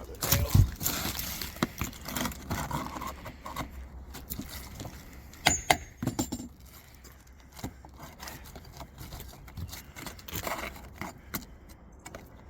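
Scattered metallic clicks and scrapes of a roof snake being worked under roof shingles to pop out the roofing nails, with a sharp knock about half a second in and a quick cluster of clicks around six seconds in.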